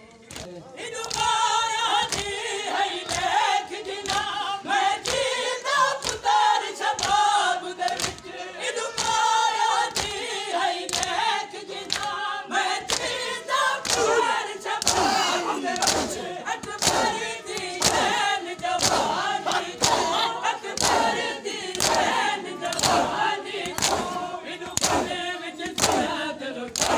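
Crowd of male mourners chanting a noha (Muharram lament) together while doing matam, beating their chests with open hands. The slaps land as a steady beat under the singing, which swells in about a second in.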